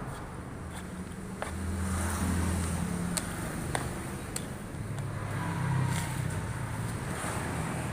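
Vertical pellet mill running, its motor giving a low hum that swells and eases as it works the feed mix, with a few sharp metallic clicks.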